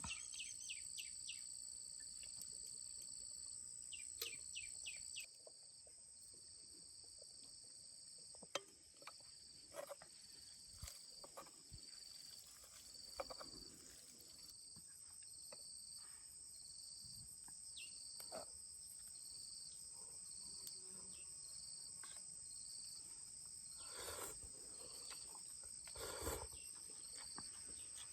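Insects trilling steadily at a high pitch, joined about halfway in by a second insect call pulsing about once a second. A bird chirps in short quick runs near the start, and a few soft clicks and rustles come and go.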